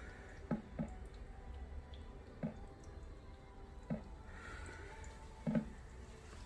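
Small plops and drips in water, about six at irregular intervals over a faint steady background.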